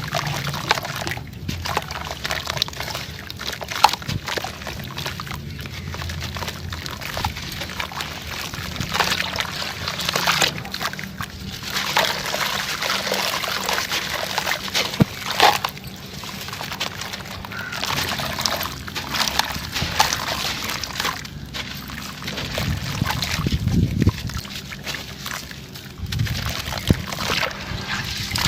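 Dry, crunchy chunks of sand cement or dirt being crushed, with dense irregular crackling and the gritty hiss of crumbled grains pouring and sliding.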